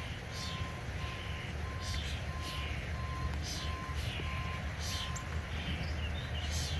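Backup alarm on a railroad hi-rail pickup truck beeping evenly, about one and a half beeps a second, over the low running of its engine, and stopping about five seconds in as the truck comes to a halt. A high hissing rasp repeats about once a second throughout.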